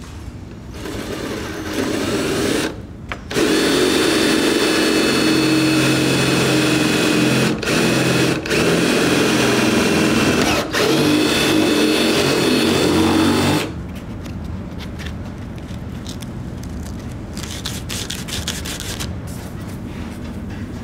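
Cordless drill with a twist bit boring through a carbon-fibre door skin. The motor starts about a second in, stops briefly, then runs steadily for about ten seconds with a few short trigger pauses, and cuts off sharply. Quieter light clicks follow.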